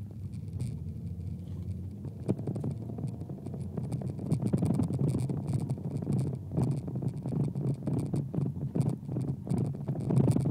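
Cabin noise of a 1999 Volkswagen Beetle on the move: a steady low engine and road hum, overlaid with frequent scratching and rattling clicks that grow louder about four seconds in.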